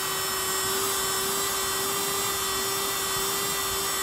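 VacPro USB mini vacuum cleaner running at a steady speed: a small motor's high, even whine over rushing air. Its suction is weak, hardly any at all.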